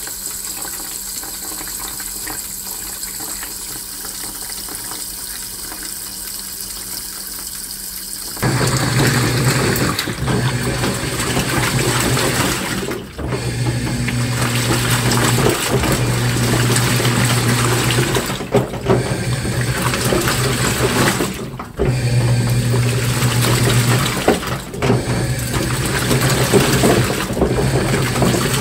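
Washing machine during a wash cycle, with water running and sloshing. About eight seconds in the sound suddenly gets louder and a low motor hum joins it, dropping out briefly several times.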